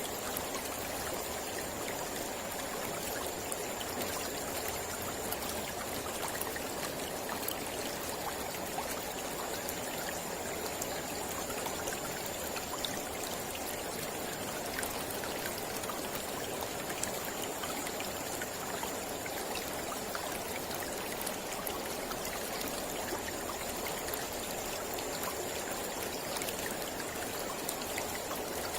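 Mountain river flowing steadily: an even, continuous rush of water with many small splashing ticks.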